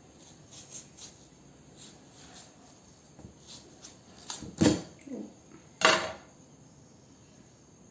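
Handling clatter of cutting tools and watermelon on a hard surface: scattered light taps, then two louder knocks about a second apart just past the middle.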